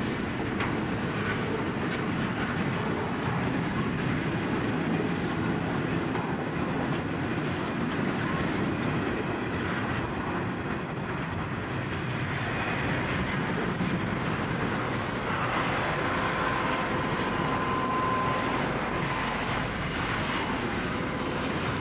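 Container freight train's wagons rolling past in a steady rumble of wheels on rail. A faint thin wheel squeal is heard for a few seconds a little past the middle.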